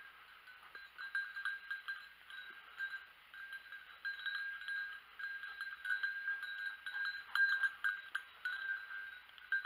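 A bell on a hunting dog's collar ringing as the dog runs through undergrowth, struck irregularly many times a second with a steady jangle.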